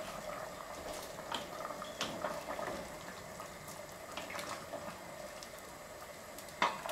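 A pot of stew simmering, bubbling and crackling steadily, with a wooden spoon stirring it and knocking sharply against the stainless steel pot near the end.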